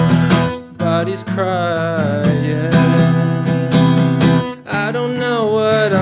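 Acoustic guitar strummed in a steady rhythm, with a man singing over it. The strumming breaks off briefly twice, just before the first second and again about four and a half seconds in, and each time a new sung line begins.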